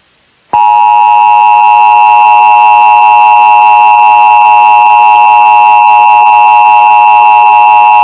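Emergency Alert System two-tone attention signal (853 and 960 Hz together) broadcast over AM radio, starting about half a second in and holding one loud, steady, harsh tone with many overtones, the alert tone that announces an EAS test or warning.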